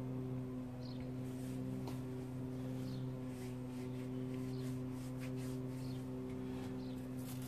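A steady low hum, even and unchanging, with a few faint light ticks scattered over it.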